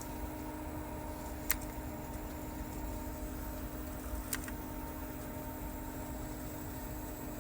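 Steady electrical hum with a few faint held tones, broken by two single sharp clicks about three seconds apart.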